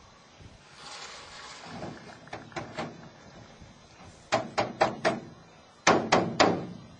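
Metal lid and body of a steam wax melter being handled: a soft rushing near the start, then a run of four sharp metallic knocks about four seconds in and three more about a second later.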